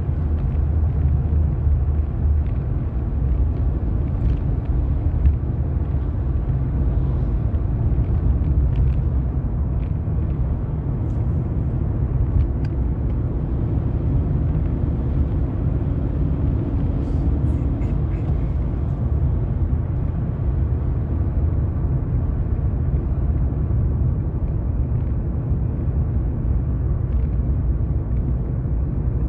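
Steady low rumble of a car's engine and tyres on the road, heard from inside the cabin while driving at a constant pace.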